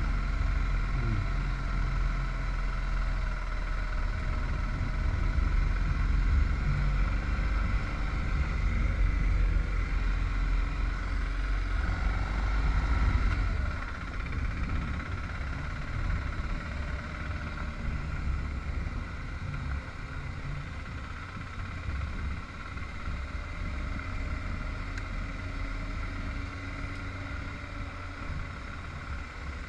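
Motorcycle running at road speed, a steady engine note over low wind rumble on the microphone; the sound eases off about halfway through and continues more quietly.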